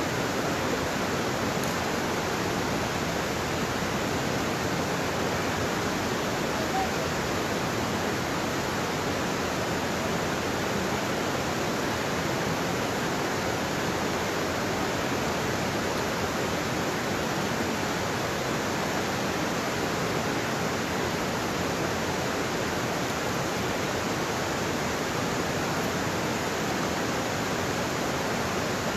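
Steady rush of a waterfall and creek water running over rocks: an even, unbroken hiss with no change in level.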